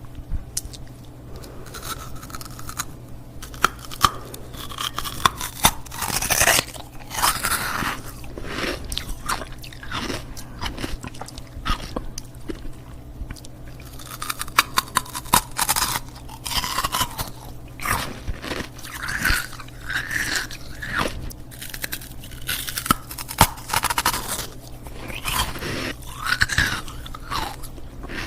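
Ice cubes being bitten and chewed right at the microphone: sharp cracks and crunching in irregular runs, over a faint steady low hum.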